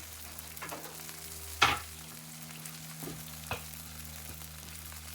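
Grilled cheese sandwich in butter and bacon grease still sizzling in the frying pan with the burner just turned off: a steady hiss. A sharp knock about a second and a half in, and a few lighter clicks.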